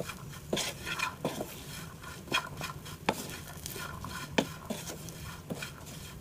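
Wooden spatula stirring cooked black chickpeas and grated coconut in a non-stick frying pan, with irregular scrapes, rattles and a few sharper knocks against the pan.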